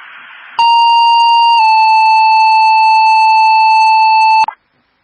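Fire dispatch two-tone paging alert over a scanner radio. Brief radio hiss, then a loud steady tone about a second long that steps slightly lower into a second tone held about three seconds, which cuts off suddenly.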